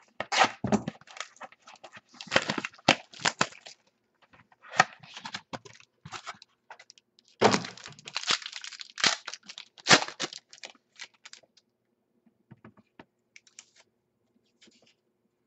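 Trading cards and plastic card holders being handled: bursts of crinkling plastic with sharp clicks and taps, thinning to a few faint ticks about eleven seconds in.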